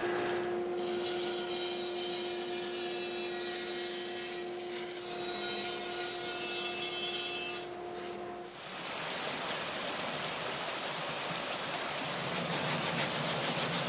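Woodworking power tools cutting a wood strip: a drill press boring holes and a bandsaw cutting out slots, over a steady motor hum. About eight and a half seconds in, the hum stops and the sound changes to the even hiss of a random orbit sander on the wood.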